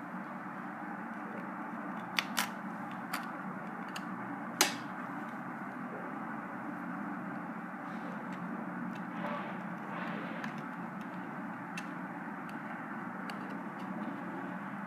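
A handful of sharp small clicks and taps about two to five seconds in, the loudest near the middle, as a laptop memory module is handled and slotted into a netbook's RAM slot, over a steady low background hum.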